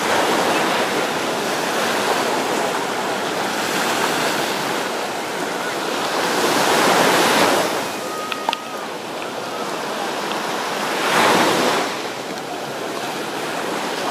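Sea surf with wind noise on the microphone, swelling louder twice, about halfway through and again near the end.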